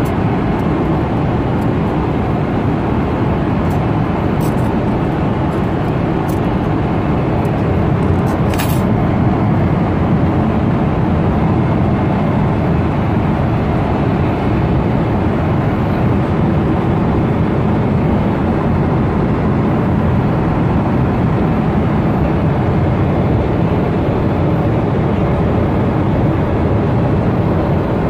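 Steady low drone of an airliner cabin in flight, engine and airflow noise, with a few light clicks between about four and nine seconds in.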